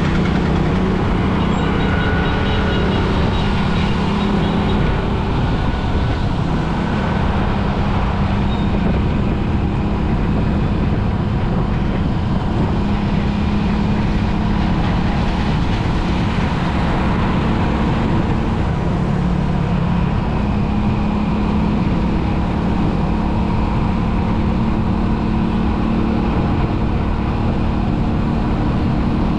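Steady noise of a moving road vehicle: an engine hum under road noise, even in level throughout.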